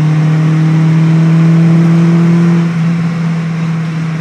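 Ford Escort Cabriolet's four-cylinder engine pulling at high revs, heard from inside the cabin, its note steady and creeping slightly higher. About two-thirds of the way in the note drops in level and stays quieter.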